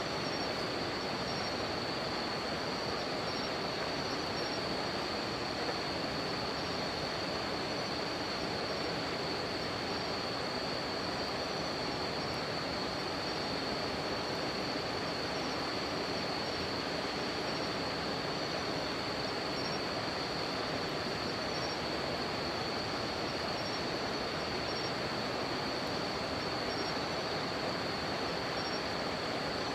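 River water running as a steady rushing noise, with insects trilling continuously at a high pitch and a second, higher insect call chirping on and off every second or two.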